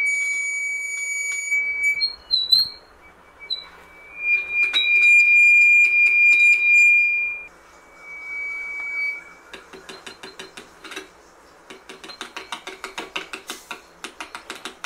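Acoustic feedback between an electret microphone and a small loudspeaker driven by a mini amplifier board: a loud, high, steady whistle at one pitch that comes in three stretches, the middle one the loudest. In the last few seconds it gives way to a rapid run of clicks from the speaker that quickens toward the end.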